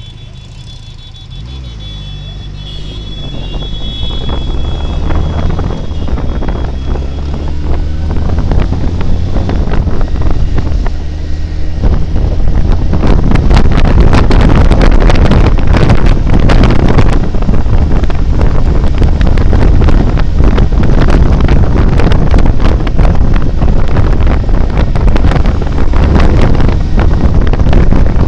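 Benelli TRK 502's parallel-twin engine pulling away, its pitch stepping up through the gears as the bike gathers speed. From about halfway through, loud wind buffeting on the microphone swamps it.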